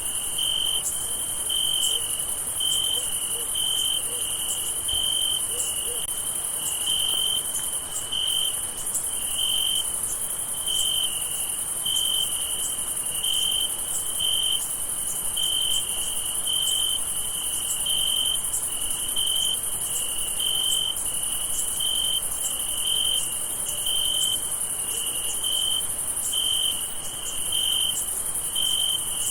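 Crickets chirping at night. One chorus gives a pulsed chirp about once a second over a steady, continuous high-pitched insect trill.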